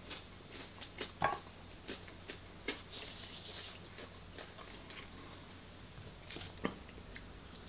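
Faint close-up chewing and mouth noises, with scattered small clicks and a brief soft hiss about three seconds in.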